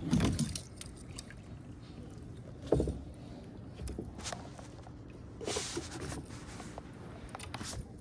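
Handling noises in a plastic fishing kayak: knocks and rattles of the rod and gear against the hull. The loudest knocks come at the start and about three seconds in, with softer clicks and rustles between.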